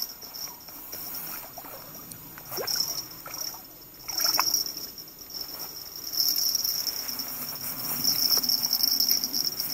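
A fishing reel being wound in bursts with rustling of rod and line as a hooked burbot is brought in to the bank, over crickets chirping steadily.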